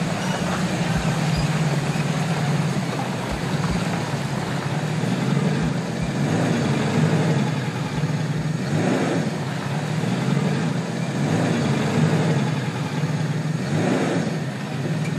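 Small 4x4's engine running steadily as it drives through muddy, water-filled potholes, with two louder swooshes about nine and fourteen seconds in.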